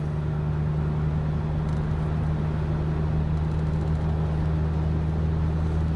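Steady road and engine noise inside a moving car's cabin at highway speed, an even rush with a constant low drone.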